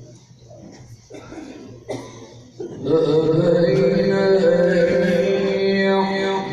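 A few scattered knocks and stirrings, then about three seconds in a man begins melodic Quran recitation (tilawat), holding long drawn-out notes.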